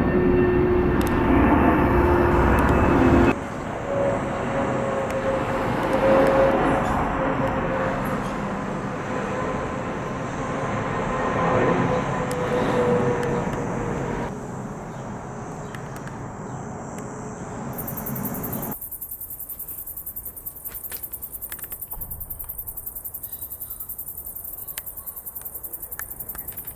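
Jet airliner engines, loud at first. After an abrupt cut comes a second stretch of jet noise with a steady whine that fades away. In the last few seconds, insects chirp in a fast, even high-pitched pulse.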